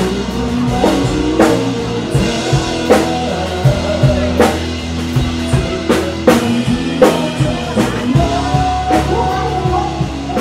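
Live band playing loudly in an open-air bar: a drum kit keeps a steady beat, with a strong hit about every second and a half, under guitar and singing.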